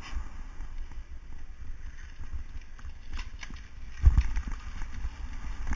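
Low rumble and rattling knocks of a bicycle-mounted camera riding along, with two heavy thumps, about four seconds in and near the end, as the bike bumps from the pavement onto the grass.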